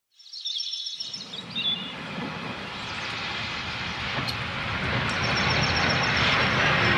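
Steam railway engine running and growing steadily louder as it approaches, with high chirps over the first second or two and a thin high whine joining about five seconds in.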